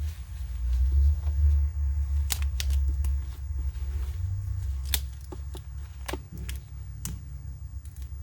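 Handling noise: a low rumble from the microphone being jostled, with a few sharp clicks and taps as the figure's parts and packaging are handled.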